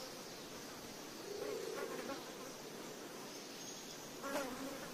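Blowflies buzzing, a low wavering drone that swells for a moment about a second and a half in.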